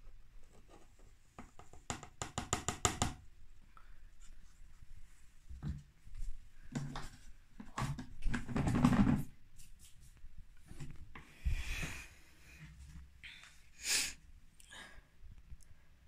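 Plastic handling sounds at a washing machine's detergent drawer: powder detergent is tipped out of a plastic measuring cup, with a quick run of taps about two seconds in. Scattered knocks and scuffs of plastic follow, the loudest a scuff about nine seconds in, and a sharp knock comes near the end.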